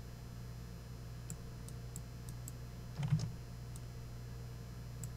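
About half a dozen light computer mouse clicks, scattered through the first four seconds, over a steady low electrical hum. A short dull thump comes about three seconds in.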